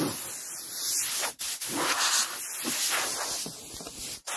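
Compressed-air blow gun on a workshop air line hissing loudly as it blows dust off a workbench, cutting out for a split second twice: about a second and a half in and near the end.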